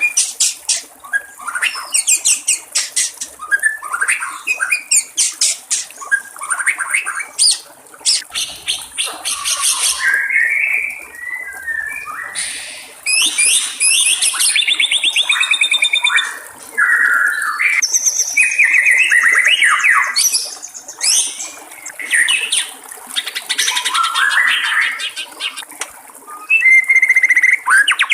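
White-rumped shama (murai batu) singing a long, varied song of fast trills, rapid repeated notes, whistles and buzzy phrases with hardly a pause, over faint trickling water.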